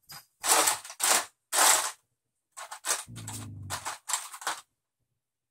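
Cardboard and plastic Monopoly pieces rustling and clattering as hands rummage through the game box, in short scraping bursts: three loud ones in the first two seconds, then a quieter flurry of shorter ones.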